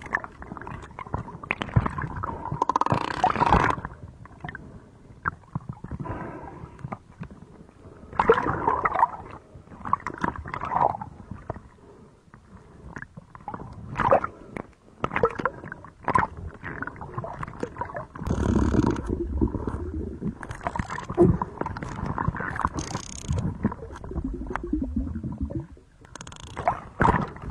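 Underwater sound close to a sperm whale: bubbling and gurgling with many irregular sharp clicks and knocks. A heavier low rumble of bubbles comes about two-thirds of the way through.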